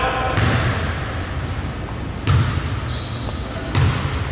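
A basketball bouncing on a gym floor, three heavy thuds spaced unevenly, with a couple of short high squeaks between them.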